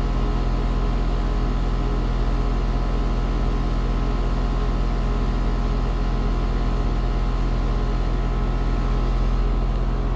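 Trane XR heat pump outdoor unit running in heating mode, its compressor and fan giving a loud, steady hum.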